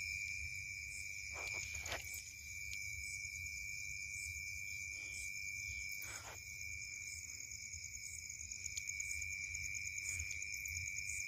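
Crickets chirring steadily in a constant high-pitched chorus. A low rumble and a few faint knocks come from movement close to the microphone.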